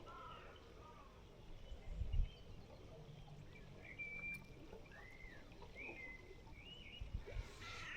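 Faint birdsong: scattered short whistled notes and arching chirps. A brief low rumble comes about two seconds in.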